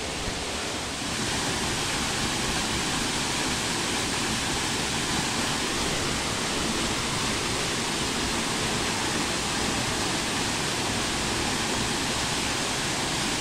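Small river's flowing water rushing steadily, a little louder from about a second in.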